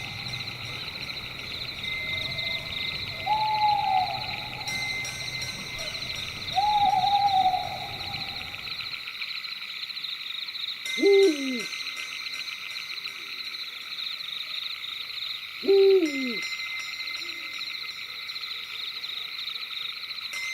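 Night ambience: an owl hooting, three short arching hoots in the first seven seconds or so, then two louder calls that drop steeply in pitch about 11 and 16 seconds in. Underneath runs a steady, high, pulsing chorus of night insects. A low rumble stops about nine seconds in.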